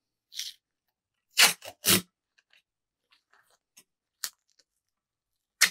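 Masking tape being peeled back off a tape arbor wound on a fly rod blank: three short ripping sounds in the first two seconds, then a few faint ticks of handling and one more short rip near the end.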